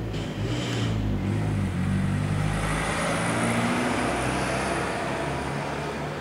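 Strong wind blowing, swelling to a louder gust about halfway through, over the steady hum of a motor vehicle engine running close by.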